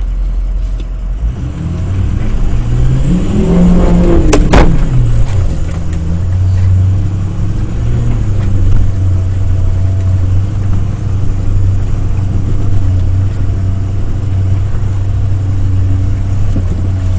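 Ford F-250 pickup's engine revving up for a few seconds, with a sharp click about four and a half seconds in, then running at a steady drone.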